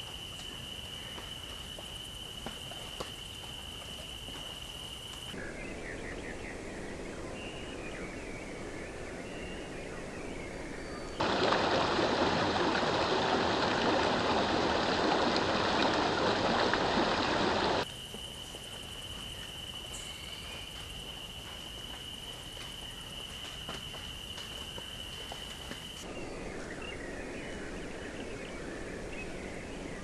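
Spliced nature sounds that change abruptly: a steady high-pitched whine, then birds chirping, then about six seconds of loud rushing water in the middle, then the steady whine and the chirping birds again.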